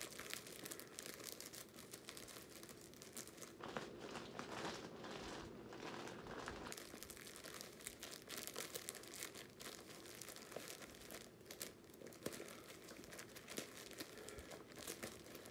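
Faint, continuous crinkling and rustling of plastic yarn packaging handled and squeezed as skeins of yarn are stuffed back into it.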